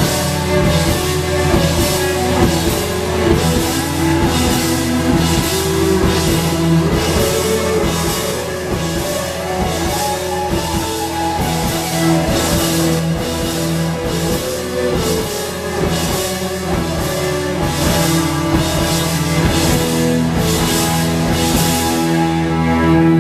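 Live rock band playing: drum kit keeping a steady beat under electric guitar, bass guitar and violin. Near the end the drums and cymbals drop out, leaving held string notes.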